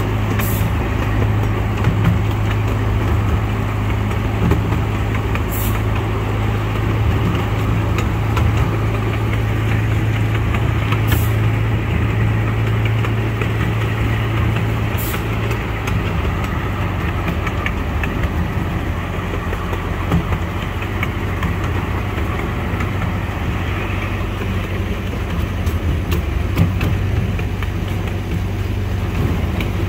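Steady drone of a large engine running at a constant speed, with a strong low hum and a few sharp clicks.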